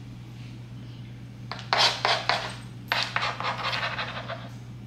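Metal spoon scraping and rubbing over a hard floor through spilled white powder: short scrapes about a second and a half in, then a longer run of strokes from about three seconds to four and a half.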